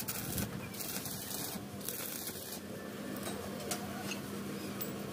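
Stick (arc) welding on steel square tube: the arc crackles and sizzles in three short runs with brief breaks, stopping about two and a half seconds in. A steady low hum runs underneath.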